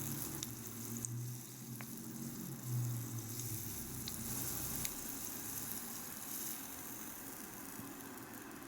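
Hot oil sizzling steadily as kakiage fritters of shrimp and vegetables fry in a miniature pan, with a low hum under it that stops about five seconds in.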